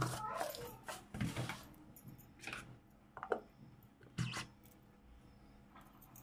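A few separate faint knocks and clicks as a white plastic lid is handled and fitted onto a stainless steel mixer-grinder jar, the sharpest knock about four seconds in; the mixer's motor is not running.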